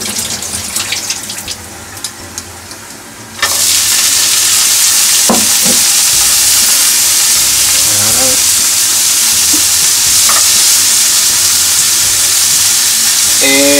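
Sliced pork frying in a hot nonstick pan with no added oil. It starts with a few light clinks, then about three and a half seconds in a loud, steady sizzle sets in as julienned carrots go into the pan, with stirring after.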